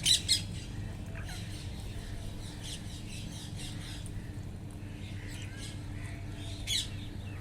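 Wild parrots squawking: two sharp squawks right at the start and another near the end, with softer calls in between over a steady low rumble.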